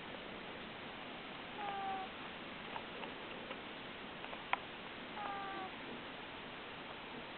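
A sleeping cat's nose whistling on her breaths, which the owner puts down to a stuffy nose: two short, slightly falling whistles about three and a half seconds apart. A few faint ticks and one sharp click fall between them.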